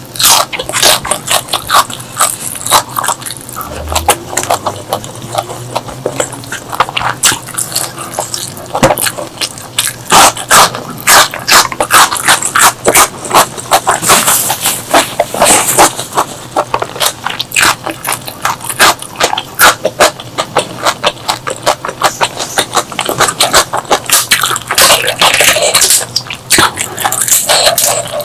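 Close-miked eating sounds: chewing and mouth smacking, a dense, irregular run of sharp wet clicks with a few longer hissy stretches.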